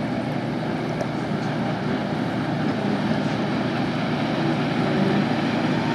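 Wakeboard tow boat running at speed, a steady engine drone mixed with rushing water, growing gradually a little louder as the boat passes close.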